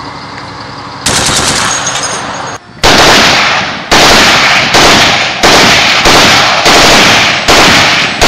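Machine-gun fire from the quadcopter's .50 Browning machine gun: about seven loud bursts with sharp starts, roughly 0.7 s apart, beginning near the three-second mark. A loud rushing noise starts about a second in.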